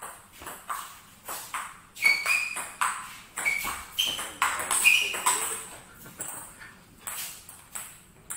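Table tennis rally: the celluloid ball clicking back and forth off rubber-faced paddles and the table, several hits a second, some strikes with a short ringing ping.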